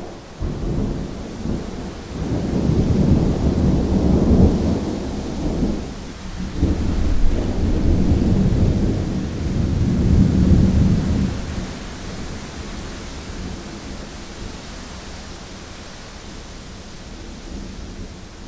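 Rolling thunder: a deep rumble that swells in two long waves, then dies away after about twelve seconds. A steady hiss runs beneath it.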